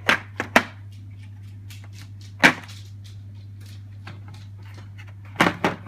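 Chrome vanadium ratchets and sockets of a Halfords Advanced socket set handled in their moulded plastic case: a few sharp metal clicks and knocks, three in quick succession at the start, one about two and a half seconds in, and two more near the end, over a steady low hum.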